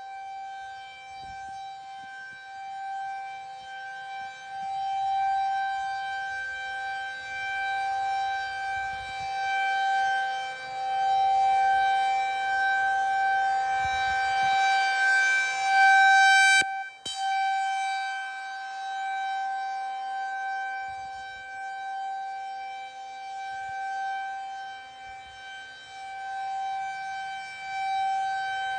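Federal Signal 2001 rotating outdoor warning siren sounding a steady, unchanging tone during a monthly test. The tone swells and fades every few seconds as the siren turns. It cuts out for a moment about two-thirds of the way through.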